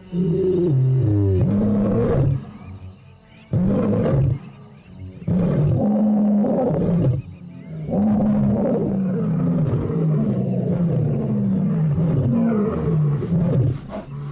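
Lion roaring: a few long, deep roars with pauses between them, then a run of shorter grunts, each falling in pitch, in the second half.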